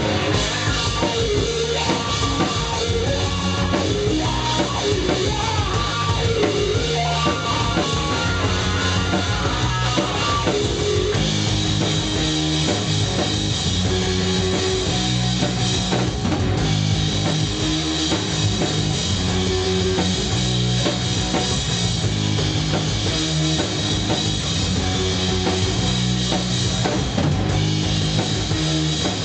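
A rock band playing live: drum kit, electric guitar and bass. The playing shifts into a denser section about eleven seconds in.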